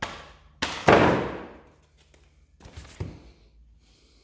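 Hard plastic knocks and scraping of a Makita battery pack being shoved against a new chainsaw's battery slot, which it will not slide into. The loudest knock comes about a second in, and two more come near three seconds.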